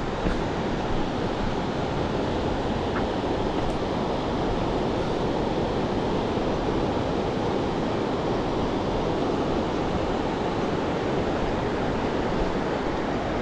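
Fast-flowing mountain river, the Parvati, rushing steadily.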